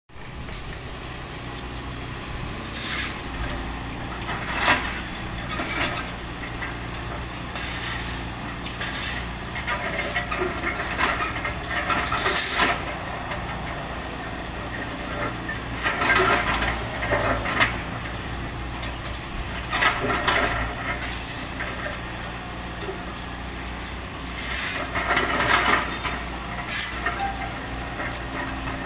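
Engine running steadily under road repair work, with irregular scrapes and knocks from tools or material every few seconds.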